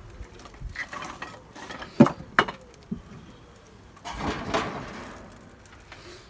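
Kiln-dried hardwood logs being handled and laid onto a small fire in a steel wood burner. There is rustling, then sharp wooden knocks about two seconds in, and a rough scraping clatter around four seconds in as a large bark-covered log is set down on the burning kindling.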